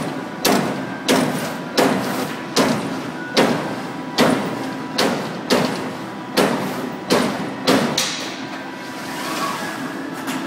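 Motorum 2044 CNC turret punch press punching sheet metal: a sharp clanking thud about every three-quarters of a second over a steady machine hum. Near the end the strokes stop for about two seconds, with a soft whoosh in the gap, then start again.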